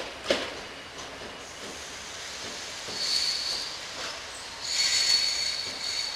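Railway wheels squealing on the rails as a train rolls slowly through station pointwork. Two sharp knocks at the very start, then high, ringing squeals come in bursts from about three seconds in.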